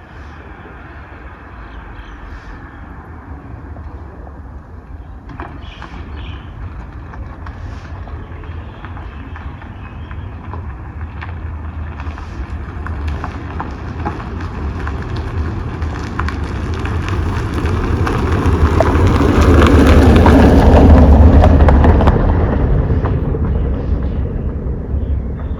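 A vehicle passing by: a low rumble with a rushing noise that builds slowly, peaks about twenty seconds in, then fades.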